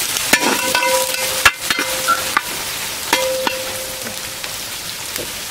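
Sliced shallots, onion, ginger and garlic sizzling in hot oil in a large metal pan as they brown. A metal spatula stirs them, scraping and knocking against the pan several times in the first few seconds, some knocks followed by a faint ringing tone. After that only the sizzle is left.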